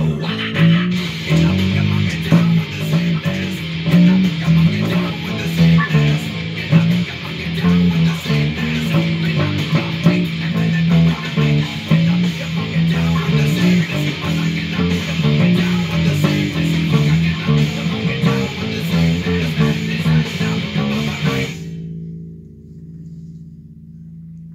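A rock band track with drums and guitars plays, with an electric bass played along to it. The track cuts off suddenly near the end, leaving a low bass note ringing and fading.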